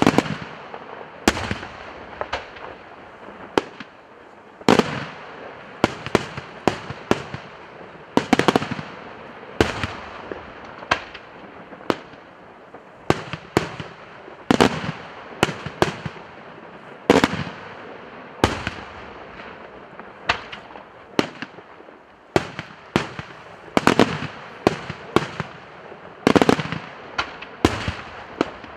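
Daytime aerial fireworks bursting overhead in an irregular, unbroken string of sharp bangs, a few each second, each trailing off in a short echo.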